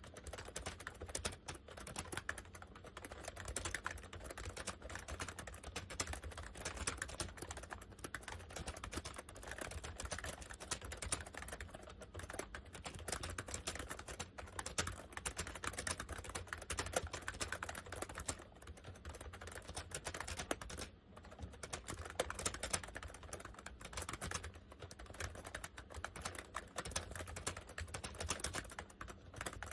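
Fast, continuous typing on a Honeywell 101WN/WT keyboard: a dense run of key clicks and clacks, with a couple of brief pauses about two-thirds of the way through. The keyboard has what appear to be dye-sublimated PBT keycaps.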